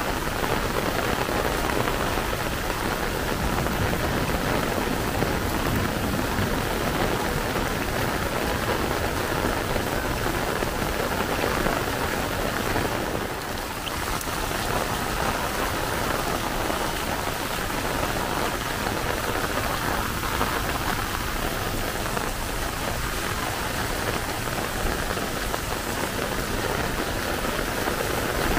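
Heavy rain pouring down steadily, a dense even hiss that dips briefly just past halfway.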